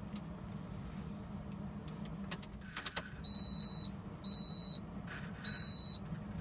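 Truck ignition key clicking as it is turned, then the dashboard warning beeper sounding: three high, even beeps about half a second long, roughly once a second, over a steady low hum.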